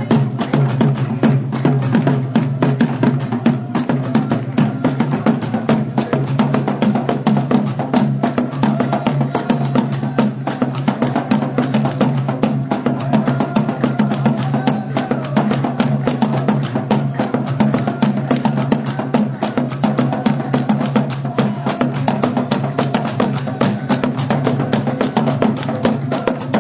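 Traditional Algerian folk music: large double-headed drums beaten with curved sticks in a fast, dense rhythm that never lets up, over steady low held tones with a wavering melody line above.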